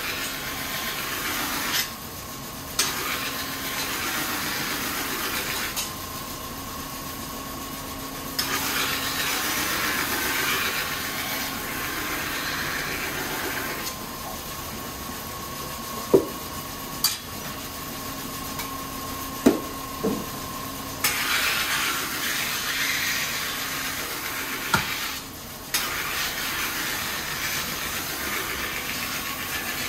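Kitchen knife being ground on a rotating whetstone: a hissing, scraping grind in passes of a few seconds, broken by short lifts of the blade, over a steady machine hum. A few sharp clicks of the blade sound in the middle.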